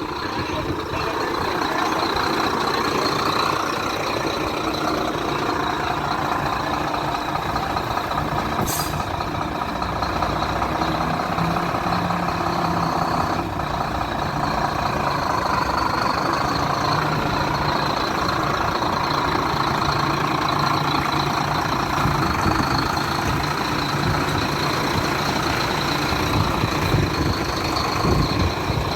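Howo 340 concrete mixer truck's diesel engine running steadily, with a thin high tone held over it.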